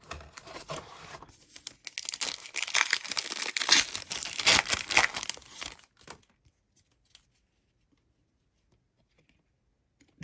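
A pack wrapper of 2022 Panini Legacy football cards being torn open and crinkled, tearing and rustling for about six seconds.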